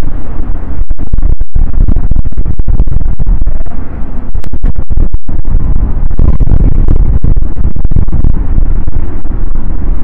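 Strong sea wind buffeting the microphone: a loud, low rumble that runs on without a break in level, cut by a few brief gaps.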